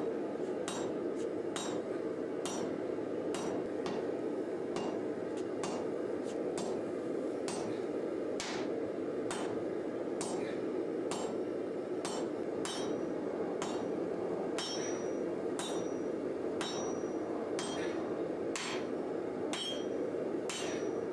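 Sledgehammer blows on a hot steel bar on an anvil: a steady rhythm of a little more than one strike a second, some strikes with a brief high ring, over a steady low rushing noise. This is the rough shaping of a thick W1 drill-rod bar into a sword blank.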